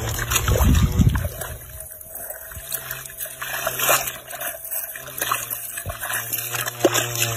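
Hands and arms digging in wet mud and muddy water, with irregular squelches, sloshes and splatters as the mud is churned. There is a low rumble in the first couple of seconds.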